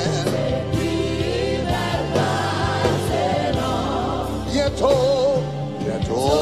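Gospel worship song in Haitian Creole: a man leads with voices singing together, over a live band with a steady bass line.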